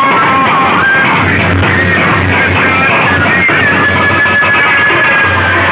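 Very loud music blasting from a DJ sound-box system, dense and harsh, with a high melody line over a pulsing bass.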